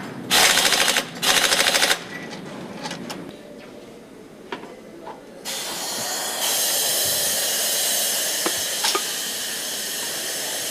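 Factory assembly machinery: two short, loud bursts of rapid rattling, each about a second long, then a few clicks. Around halfway a steady hiss starts and soon grows louder.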